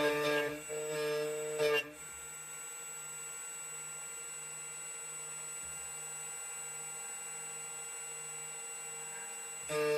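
2M2 Tank CNC key cutting machine running through a cut of a key blank: a steady electric hum and whine of several fixed tones. Louder tonal passages fill the first two seconds and return near the end.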